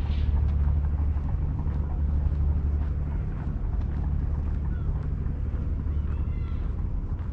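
Steady low drone of a boat's engine, with wind on the microphone.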